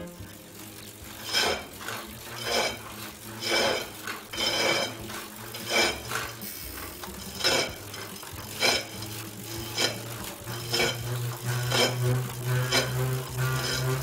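Tacx Neo-series smart trainer's motor brake being pedalled, giving a metallic clank about once a second. The noise can point to a problem with the hub axle in the centre of the motor brake.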